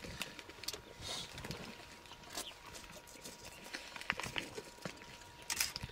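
Lionesses feeding on a fresh kill: irregular crunching, tearing and wet chewing as they pull at the carcass. A faint steady high whine sits under it.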